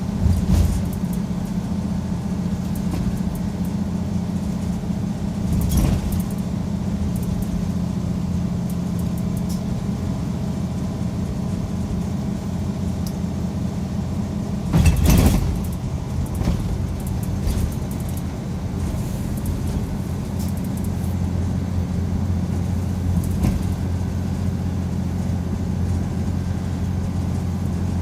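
Mitsubishi Fuso Aero Midi MK route bus running, heard from inside the cabin: a steady engine drone with a few jolts or knocks, the loudest about halfway through. The engine note drops lower about two-thirds of the way through.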